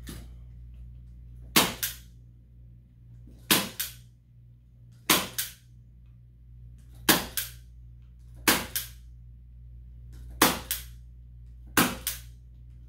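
Manual staple gun firing staples through canvas into wooden stretcher bars, one shot about every one and a half to two seconds, eight in all, each a sharp double click.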